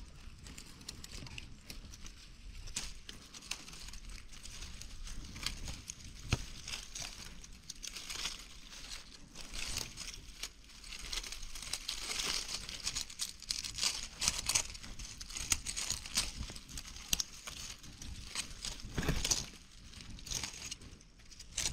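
Dry leaves and twigs rustling and crackling as someone moves through dry forest undergrowth, a dense, irregular crackle that is busiest in the middle.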